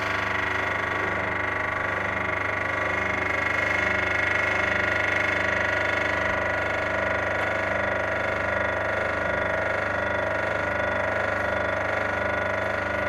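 Concrete block and paving block making machine running steadily, a constant mechanical hum with several fixed tones that does not change.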